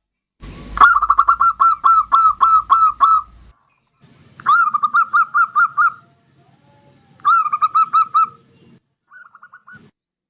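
Zebra dove (perkutut) cooing in three quick runs of short, evenly spaced notes, the first the longest, followed by a faint short run near the end.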